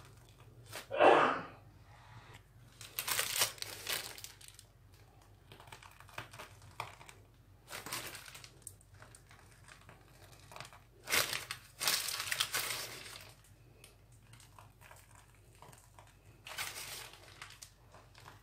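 Plastic piping bag crinkling in bursts as it is squeezed to pipe whipped-cream rosettes, with a short, louder sound about a second in.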